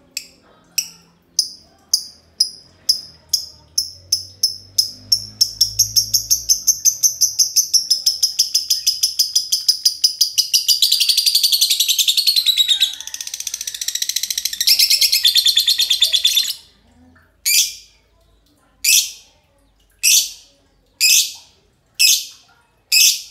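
Green lovebirds in a long 'ngekek' chatter: sharp high chirps that speed up from about two a second into a fast continuous trill. The sound thickens about halfway through as a second bird joins in. It breaks off suddenly after about sixteen seconds into single chirps about once a second.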